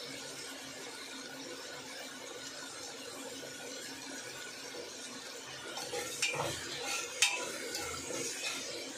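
Onions and tomatoes frying in oil in an aluminium pressure cooker with a steady hiss. About six seconds in, a spatula starts stirring, scraping against the pot with a few clinks and one sharp knock.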